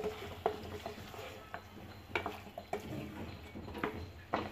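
Wooden spatula stirring chicken and potato chunks in a stainless steel pot, knocking and scraping against the pot several times at irregular intervals as the meat and potatoes are sautéed in spice paste.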